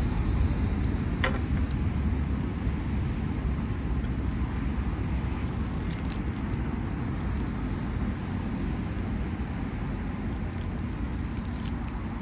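Low rumble of a jet airliner on landing approach, fading slowly, with a few light clicks from handling food and a pan.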